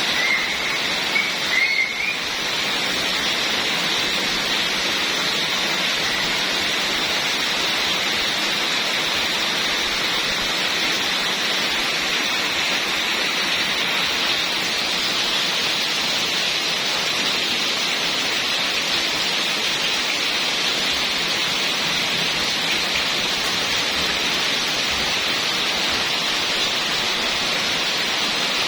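Heavy rain falling steadily, a dense, even hiss. A few faint short high notes sound in the first two seconds.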